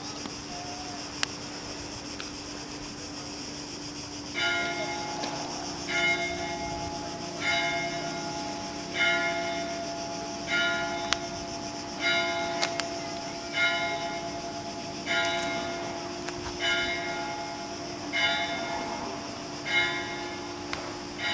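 A single bell tolling slowly, struck about every second and a half from about four seconds in, each stroke ringing on into the next with a lingering hum; about a dozen strokes.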